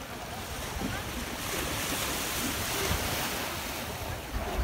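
Small waves washing on a shingly shore, mixed with wind on the microphone, the hiss swelling for a couple of seconds about one and a half seconds in, with faint distant voices.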